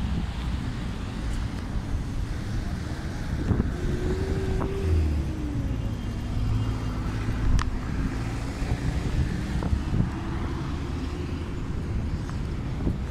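Road traffic at a busy city junction: cars driving past with a steady low rumble, and a faint hum that drops in pitch about five seconds in.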